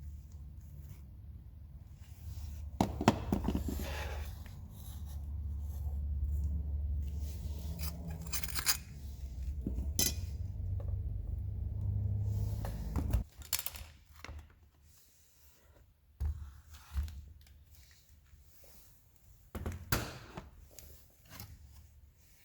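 Metal tools and parts clinking, scraping and knocking as they are handled, over a low steady hum that cuts off about two-thirds of the way through; after that come only a few separate knocks.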